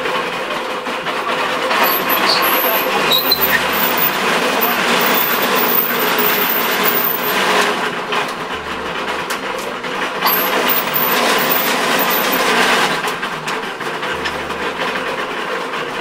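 Sugarcane press (moenda) running steadily while cane stalks are fed through its crushing rollers to squeeze out juice: a steady, dense mechanical noise.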